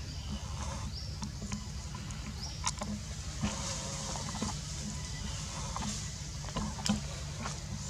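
Forest ambience: a steady low rumble on the microphone with scattered sharp clicks and snaps, as of twigs and leaves shifting while monkeys move through the branches, and a couple of brief high chirps about one and two and a half seconds in.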